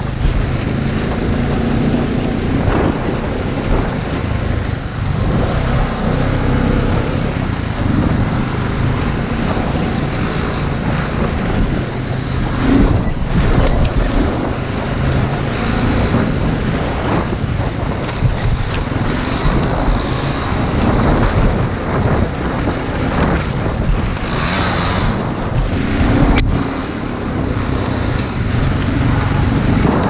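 Quad bike (ATV) engine running under throttle while riding over a rough dirt track, with wind buffeting the mounted camera's microphone. A single sharp click comes near the end.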